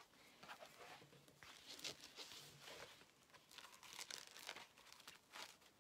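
Faint crinkling and rustling of sheets of craft vinyl and their plastic packaging being handled, an irregular string of small crackles and scrapes.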